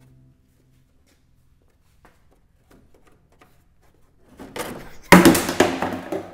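Near quiet with faint ticks, then a brief rising rush and a sudden loud crash about five seconds in that fades away.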